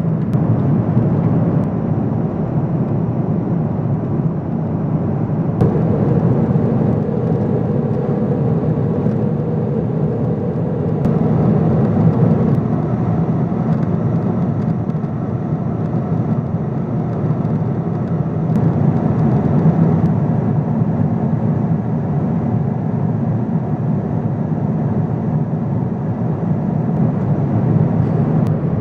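Steady cabin noise of a Boeing 777-200ER at cruise: the deep, even rush of airflow and GE90 engines heard from a window seat. A faint higher hum joins for several seconds near the middle.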